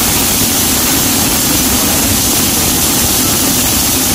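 Kitchen chimney (range-hood exhaust fan) running with a steady, loud rushing noise.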